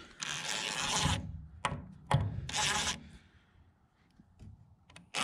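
Cordless DeWalt impact driver running in two short bursts, driving a screw up into a wooden barn truss, with a couple of sharp clicks between the bursts.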